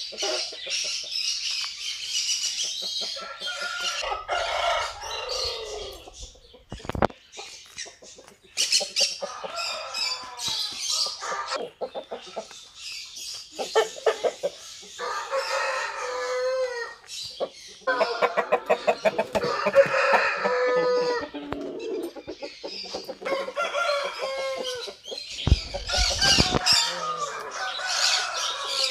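Chickens clucking and Aseel roosters crowing, many calls one after another with short gaps between them.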